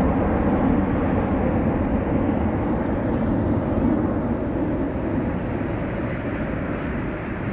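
Boeing 747-400 jet climbing out at takeoff power: the four turbofan engines make a deep, steady rumble that slowly fades as the aircraft flies away.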